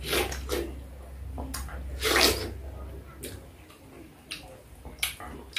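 Wet biting and slurping of juicy fresh pineapple close to the microphone: a handful of short bursts, the loudest about two seconds in.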